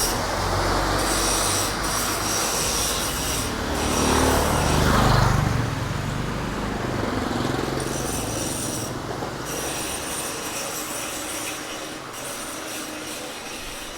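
Street traffic: a motor vehicle's engine rumble grows louder to a peak about five seconds in as it passes close by, then fades into a lower, steady traffic noise.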